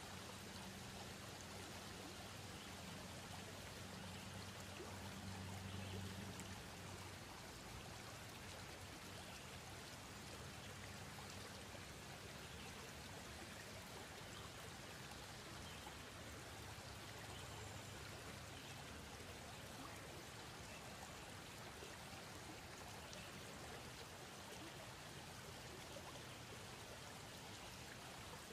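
Faint, steady hiss with no distinct events, and a low hum underneath during the first several seconds.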